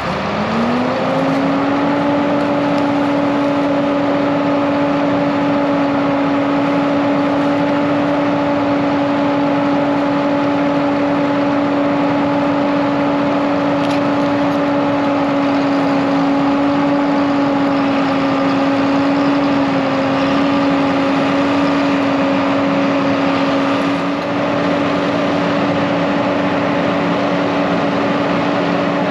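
Heavy diesel engine of farm machinery revving up in the first second, then held at high speed under load as the stuck combine is pulled out of the hole.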